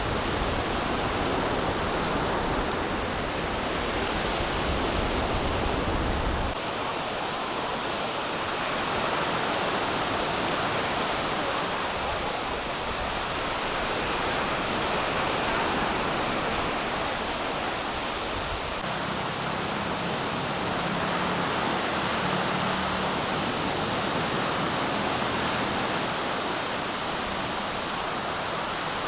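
Steady rushing noise of beach surf and wind. The low rumble drops away about six seconds in, and a faint low hum joins a little past halfway.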